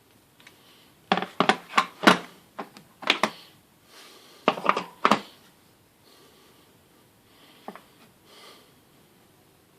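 Pieces of a car repair tool kit being handled: a quick run of sharp clicks and knocks about a second in, another cluster around four and a half seconds, then faint rustling and handling.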